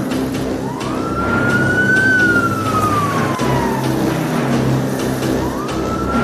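Police siren wailing in a slow rise and fall: it climbs to a high held note, sinks gradually, and starts climbing again near the end. Vehicle engines run underneath as the police convoy drives past.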